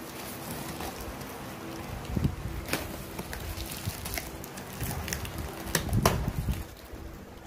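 Scissors cutting through a cardboard box and its packing tape, with cardboard flaps and foam sheets being pulled and handled; a few sharp crackling knocks stand out, the loudest about six seconds in. A faint steady hum runs underneath.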